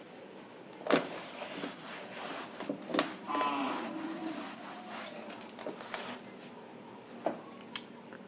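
A cloth rubbing across a blackboard as it is wiped clean, with two sharp knocks about a second and three seconds in. A short pitched call follows just after the second knock, and a few small clicks come near the end.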